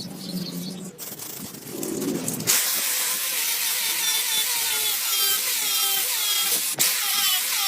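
A small power tool or motor running, with a loud, steady hiss that starts about two and a half seconds in and short falling squeals repeating a few times a second.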